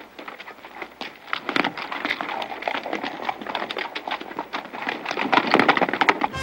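Several horses' hooves clopping and scuffing on a dirt street as riders mount up, in an irregular run of knocks that grows louder and busier near the end.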